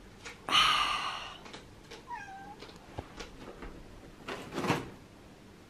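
Domestic cat meowing: one loud, drawn-out meow about half a second in, then a shorter meow falling in pitch about two seconds in. A brief rustle follows near the end.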